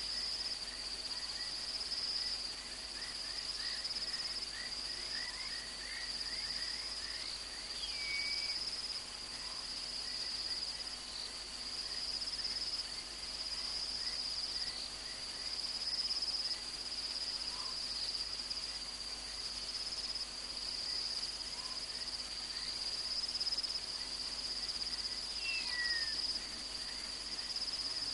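Night insect chorus: a steady, high-pitched trill, with fainter short chirps underneath. Twice, about 8 seconds in and near the end, a brief whistle slides downward over it.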